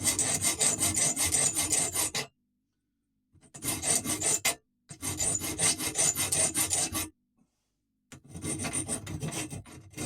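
Hand file rasping quickly back and forth across the tip of a metal BBQ skewer, taking off its sharp point. The filing comes in four bouts of rapid strokes with short pauses between.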